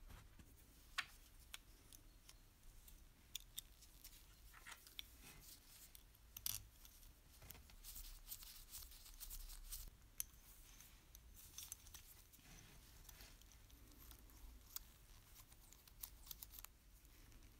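Faint, scattered clicks and light scraping of small metal parts being handled and fitted together: the brass oscillating cylinder and its fittings of a 1950 JC Unis toy steam engine being mounted on its bracket.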